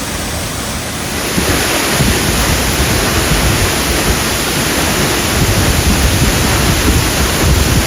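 Waterfall rushing in a steady, loud roar that grows louder about a second in, with wind rumbling on the microphone.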